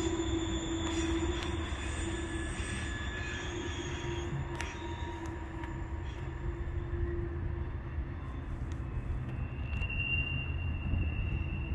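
Steel wheels of a departing train of tank cars squealing on a curve over a low rolling rumble, the squeal fading as the cars move away, with a new, higher squeal tone rising near the end.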